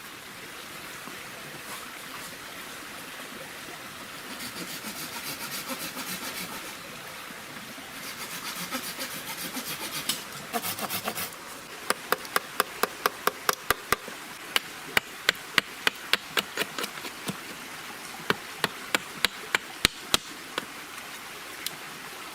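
Hand tool working wood: two spells of rasping, sawing strokes, then a fast run of sharp knocks, about three or four a second in short groups.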